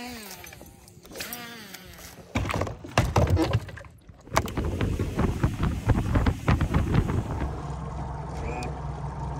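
Knocks and clatters of fishing gear being stowed on the deck of a bass boat, the rod and the bow-mounted trolling motor put away, followed in the last couple of seconds by the boat's outboard engine running with a steady low hum.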